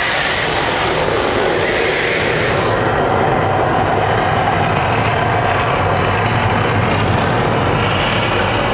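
Mirage volcano show erupting: a loud, steady rumbling roar, its higher hiss dropping away about three seconds in.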